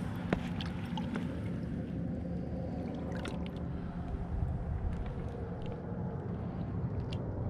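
Small waves lapping and splashing against the reservoir shore, with scattered small splashes over a steady low rumble.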